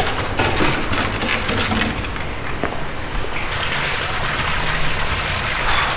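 Water splashing steadily from a pool fountain, fuller from about halfway through, with a few light knocks early on.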